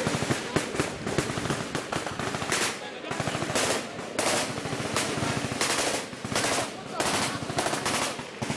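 Sustained firefight gunfire: rapid automatic fire, shots coming many times a second, with louder bursts breaking in about once a second.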